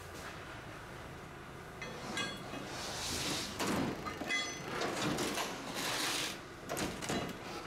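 Steel plate-lifting clamps and crane chains dragged across and hooked onto a steel plate in a truck bed: metal scraping and clanking, with short ringing clinks, starting about two seconds in.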